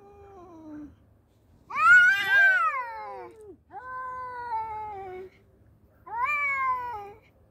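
Two tomcats yowling at each other in a fight standoff. There are four drawn-out, wavering yowls, each rising then falling in pitch; the first is faint and the loudest comes about two seconds in.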